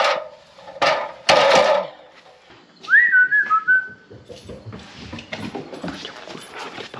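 Loud rustling or bumping noises in the first two seconds, then a short whistle about three seconds in: one quick rise to a high note that steps down through a couple of lower notes.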